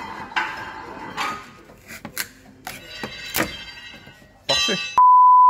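Brown packing tape being pulled off a hand tape dispenser in screeching strips and pressed onto a car headlight lens, twice. A loud, steady electronic beep tone cuts in for the last half second.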